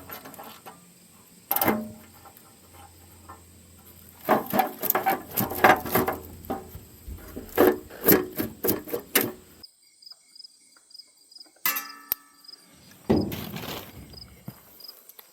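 Tool work on the tractor: a sharp knock, then a few seconds in a quick run of irregular knocks and clanks lasting about five seconds, and another clattering knock later. Crickets chirp faintly in the second half.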